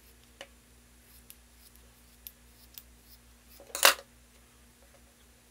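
Scissors cutting through a foam makeup sponge: a few faint snips and clicks of the blades, then one much louder brief noise a little before four seconds in.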